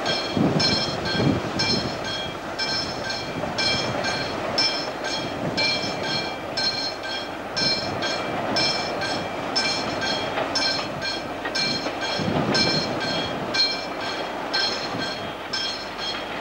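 Freight train of mixed wagons rolling past on a curve: a steady rumble of wagons on the rails with a few heavier knocks near the start and about twelve seconds in. Over it, high squealing tones from the wheels pulse on and off about twice a second.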